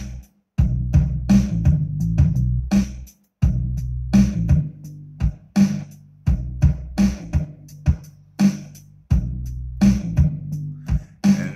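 Hip-hop beat playing back from Maschine: a steady drum-machine pattern over a sustained bass line. It cuts out for a moment twice in the first few seconds as patterns are switched.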